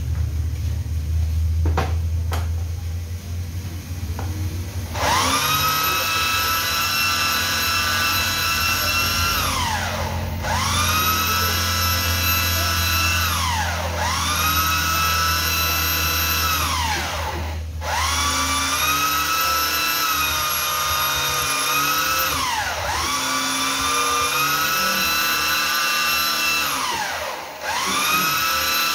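Electric drill run in six bursts of several seconds each, its whine rising quickly as the trigger is pulled, holding steady, then falling as it is released. A low steady hum comes before the first burst.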